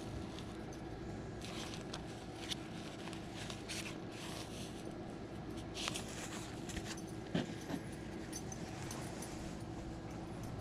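Handling noise of a zippered CD binder: scattered short rustles and scrapes as its disc sleeves are looked through and the case is closed, over a steady low outdoor rumble.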